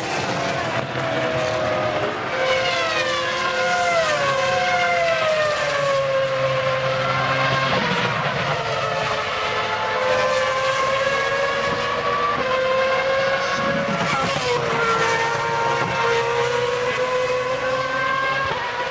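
Formula One cars running at high revs, several engine notes overlapping. The pitches fall in long glides in the first seconds and rise again as the cars brake, shift and accelerate. One note dips and climbs again about two thirds of the way through.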